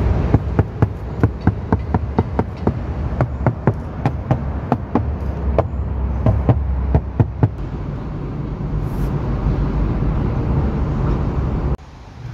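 A hand knocking on a Perodua Myvi's plastic door trim: a run of sharp, irregular knocks, a few a second, over a steady low rumble, stopping after about seven seconds.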